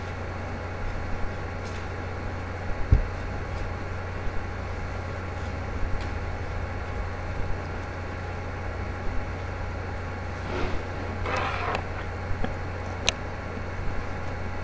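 Steady low hum with hiss over it, broken by a few sharp clicks and a brief rustle about two-thirds of the way through.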